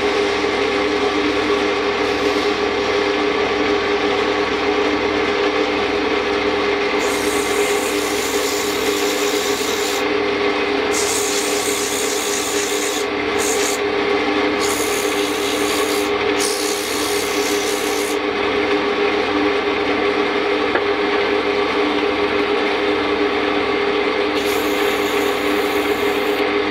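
Wood lathe motor running with a steady hum while a small spinning piece of wood is sanded by hand with a strip of sandpaper. The sanding comes in several stretches of hiss from about a quarter of the way in to about two-thirds, and once more near the end.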